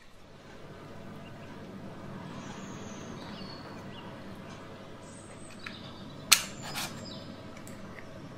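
Steady background hiss with a few faint chirps, then two sharp knocks about half a second apart roughly six seconds in.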